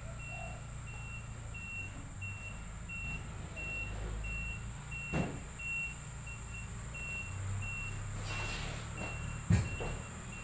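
A vehicle's reversing alarm beeping steadily at about two high beeps a second, faint over a low rumble. Two sharp knocks, one about five seconds in and one near the end.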